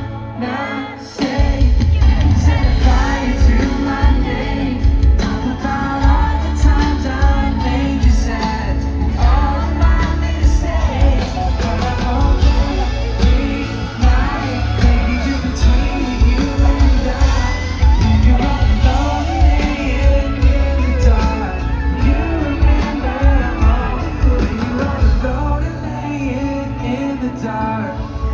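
Live pop band playing with singing over heavy bass and drums. The low end drops out briefly about a second in, then the full band comes back in.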